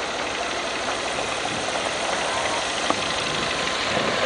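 A steady engine running, heard within even, continuous outdoor noise, with one short click about three seconds in.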